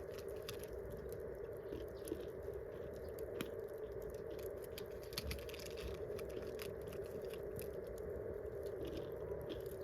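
Wood campfire burning, with many small sharp crackles and pops at irregular intervals over a steady low hiss.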